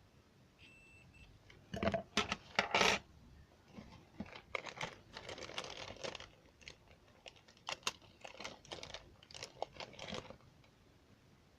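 Keys of an Apple II keyboard clicking as they are pressed in irregular quick runs, the loudest run about two seconds in.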